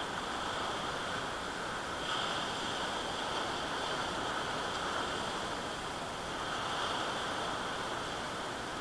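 Steady wash of surf on the shore, swelling slightly a couple of times.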